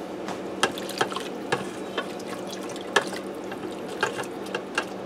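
A spoon stirring beef chunks, mushrooms and onions in beef broth inside an electric pressure cooker's metal inner pot: liquid sloshing, with irregular clicks of the spoon against the pot.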